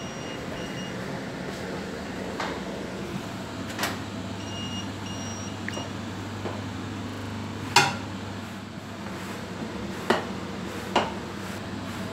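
Short high electronic beeps in two groups of about three, one at the start and one about four and a half seconds in. Under them runs a steady machinery hum, with a handful of sharp knocks, the loudest about eight seconds in.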